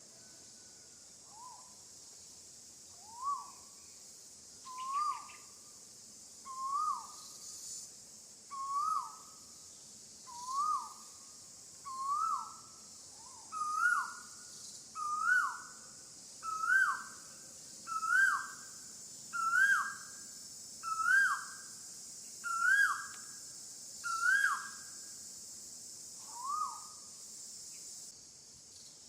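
An animal calling over and over: about fifteen clear notes, each rising then dropping sharply in pitch, about one every one and a half seconds, climbing higher and louder through the series before one last lower note. A steady high insect hiss runs underneath.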